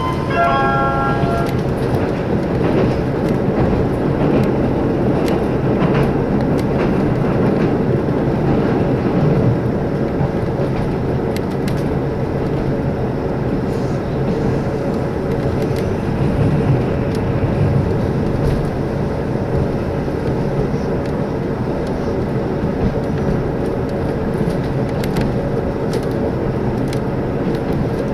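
Steady running noise inside a two-car JR Shikoku diesel limited express under way: engine and wheel rumble with a few faint clicks from the rails. The last notes of the Shikoku chime, a short melody, end about a second and a half in.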